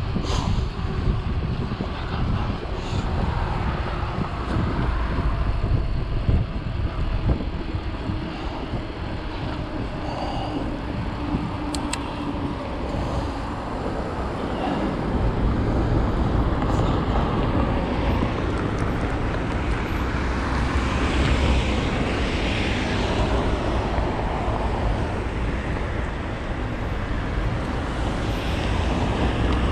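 Steady low rumble of road vehicle noise, swelling a little about two-thirds of the way through.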